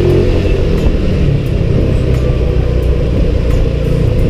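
Motorcycle engine running steadily while riding, mixed with wind rumbling on the microphone.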